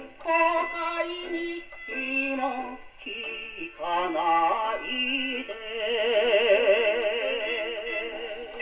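A 1950s enka song played acoustically from a King 78 rpm record on a SANKYO Goldring portable wind-up gramophone with a medium-tone steel needle: a vocal melody with heavy vibrato over the band, thin and with almost no bass. The melody ends its phrase on one long held, wavering note that begins about halfway through.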